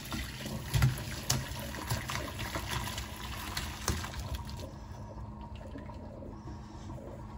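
Hot cooking water and boiled vegetables poured from a pot into a plastic colander in a stainless-steel sink, splashing into the sink basin with a few light knocks. The pour tails off after about four and a half seconds into quieter draining.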